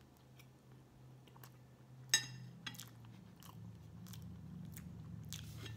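Close-miked chewing and small wet mouth clicks of someone eating cake, over a steady low hum. About two seconds in there is one sharp, ringing clink of a metal fork against a ceramic plate.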